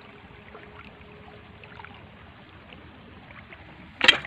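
Stream water running faintly, then about four seconds in a sudden sharp splash as a stab into the water at a catfish misses.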